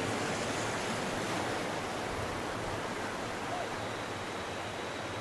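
Sea surf breaking and washing over a shallow sandy beach: a steady rush of water that eases off slightly.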